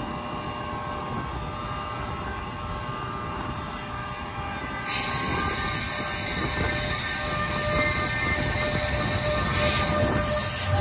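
NJ Transit ALP-46A electric locomotive passing, pushing its train from the rear: a steady rumble of wheels on rail with faint steady tones over it. A hiss of rail noise starts suddenly about five seconds in and gets louder near the end.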